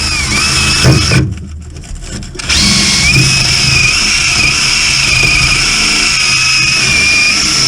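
Power tool running with a high whine that dips and wavers in pitch under load, working rusted bolts on the truck's underside. It stops for about a second near the start, then runs steadily again.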